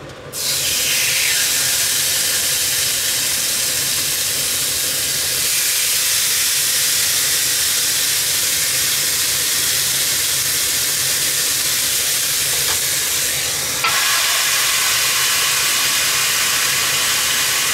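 Marinated pork neck steaks sizzling on the hot plates of a Tefal OptiGrill contact grill, a steady frying hiss that starts as the meat goes on about half a second in. It steps up louder about fourteen seconds in.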